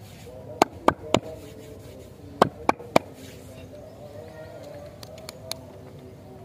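Two quick sets of three sharp taps from a fingertip tapping the paper-wrapped lollipops, then two faint ticks. A faint tune plays underneath.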